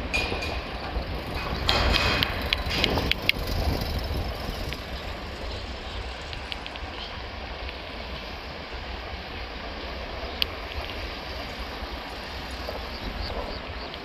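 Steady low vehicle rumble outdoors, louder for a couple of seconds near the start with a few sharp clicks, then settling to an even background rumble.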